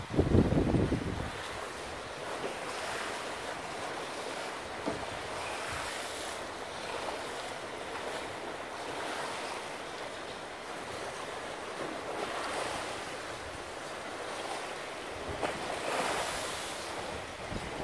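Choppy waves breaking and washing onto the shore, rising in surges every few seconds, the biggest splash near the end. Wind rumbles on the microphone in the first second.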